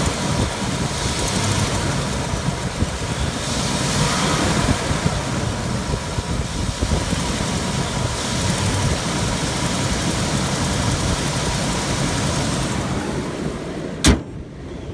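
2005 Nissan Armada's 5.7-litre V8 running with a little bit of a ticking noise from an exhaust leak, a cracked passenger-side exhaust manifold. A single sharp knock near the end.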